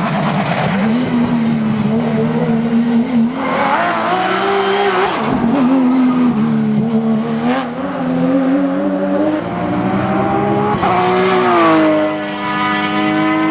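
Porsche GT3 rally car's flat-six engine revving hard at racing speed, its pitch climbing and dropping again and again through gear changes and lifts.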